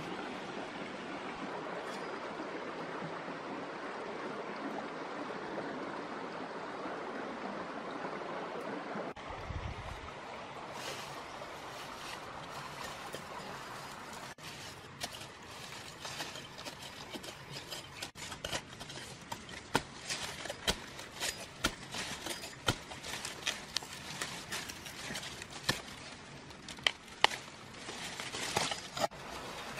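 A steady rush of running water for about nine seconds. Then come many sharp snaps, clicks and rustles, getting denser toward the end, as young shoots are snapped and pulled from the soil among dry leaves and stems.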